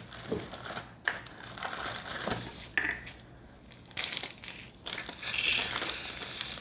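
Thin plastic bag of diamond painting drills crinkling as it is handled and opened, with scattered light clicks and a longer stretch of rustling about five seconds in.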